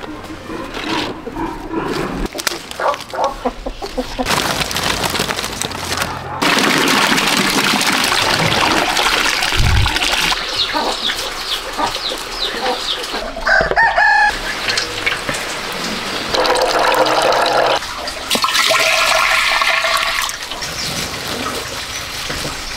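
Roosters crowing and chickens clucking over a run of short farm-work clips whose background sound changes abruptly every few seconds.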